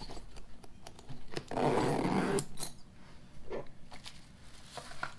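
Light clicks and taps of hand tools and packaging being handled, with a short, rough rasping noise lasting about a second, about one and a half seconds in.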